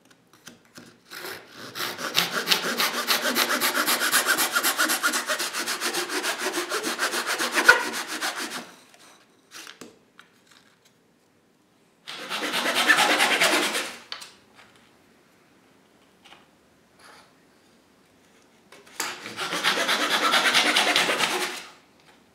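Fine-toothed hand saw cutting through a half-inch oak dowel in quick back-and-forth strokes: one long cut of about seven seconds, then two shorter cuts of about two seconds each. Light wooden clicks and taps come between the cuts as the cut pegs are handled.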